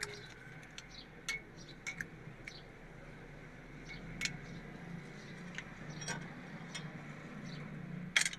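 Scattered light metallic clicks and clinks of a ring spanner and screwdriver knocking against a diesel engine's rocker arms and tappet adjusting screws as the valve clearances are set, with a louder cluster of clinks near the end.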